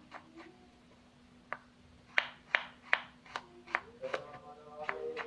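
Kitchen knife slicing garlic cloves on a wooden cutting board: sharp knocks of the blade against the board. After a pause at the start, they come about two to three a second.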